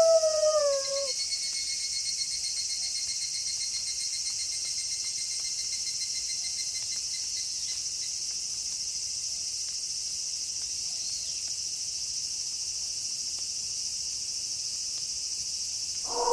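A wolf howl sliding down in pitch and fading out in the first second, then a night chorus of insects: a steady high hiss with a fast pulsing cricket-like trill that runs for several seconds and fades. Another wolf howl begins at the very end.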